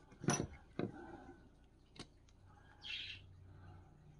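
Sharp clicks and knocks as the metal and wooden parts of an antique paint scraper are handled and set against a wooden workbench: two loud ones in the first second and a lighter one about two seconds in. A short hissing chirp follows about three seconds in.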